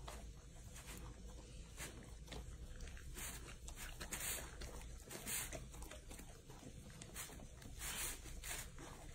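Two golden retrievers, an adult and a puppy, licking and chewing at a soft cake: faint wet smacking and lapping in short irregular bursts, a few louder ones about four, five and eight seconds in.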